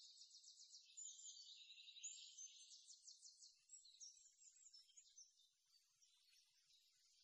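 Near silence with faint, high-pitched chirping and fast trills in the background, dying away over the second half.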